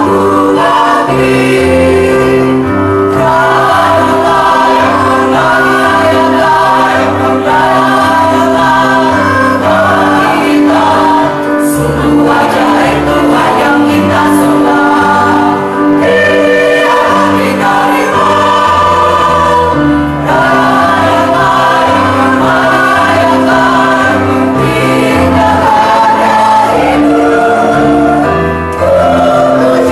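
Mixed church choir of men and women singing an Indonesian Easter worship song, with instrumental accompaniment holding sustained low notes beneath the voices.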